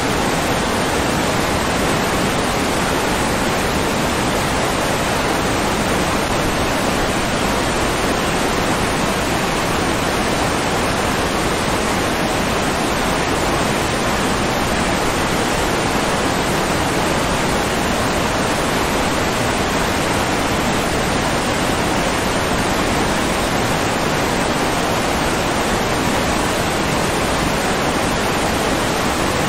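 Steady, even rush of water, with no breaks or changes.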